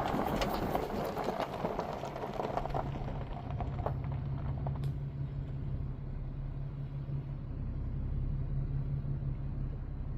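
Car driving up a mountain road, heard from inside the cabin: a steady low engine and drivetrain hum with tyre and road noise. The road noise is crackly for the first three seconds, then eases, and there are a couple of light knocks about four and five seconds in.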